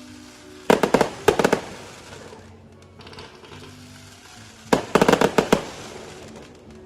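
Fireworks going off in two quick volleys of sharp bangs, one about a second in and another about five seconds in.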